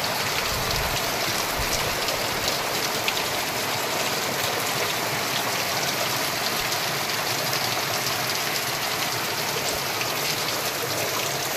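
Heavy rain pouring down steadily, spattering on the ground and puddles, with water streaming off the roof edge.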